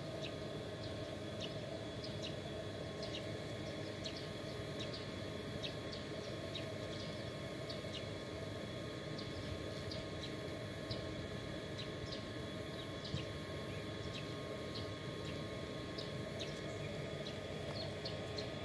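Outdoor ambience: a steady low rumble like distant traffic, with many short, high chirps at about two to three a second.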